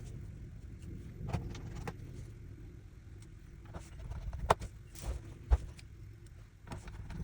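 Small screws being driven back into a MacBook Pro's bottom case with a screwdriver: scattered light clicks and taps of the driver and screws against the case, two sharper knocks a little after halfway, over a low steady hum.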